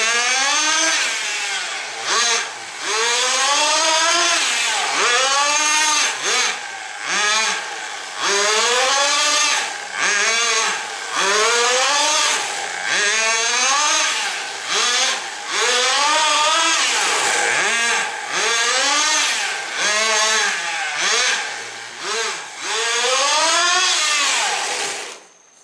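Tamiya TGX 1/8-scale RC car's glow-fuel engine revving up and falling back again and again as the car is driven, with short throttle-off drops every second or two. The engine sound cuts off suddenly shortly before the end.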